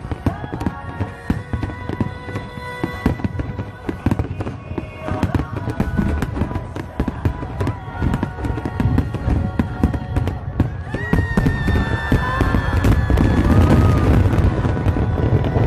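A fireworks barrage: many aerial shells bursting in quick succession, with rapid bangs and crackles. It grows louder and heavier over the last few seconds as the finale thickens.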